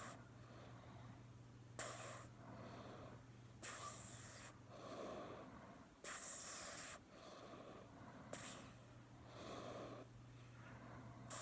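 A sleeping cat snoring softly: faint, raspy breaths in and out, a new one every second or two, with a steady low hum underneath.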